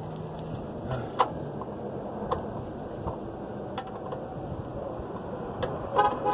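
Hand tools clinking under a car during an oil change: a few separate sharp metal taps, one leaving a brief ring, then a quick cluster of ringing metal knocks near the end, over a steady outdoor background hum.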